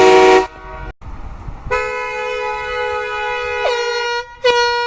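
Air horn blasts: a loud blast cuts off about half a second in, a long steady blast follows from under two seconds in, and a short blast comes near the end.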